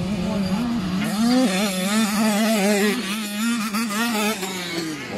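85 cc two-stroke motocross bikes revving hard, their engine pitch rising and falling repeatedly as the riders work the throttle and gears, with one bike passing close near the end.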